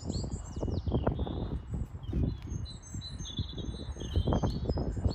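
Small songbirds chirping and trilling, many short high notes, over irregular low thuds and rustling close to the microphone.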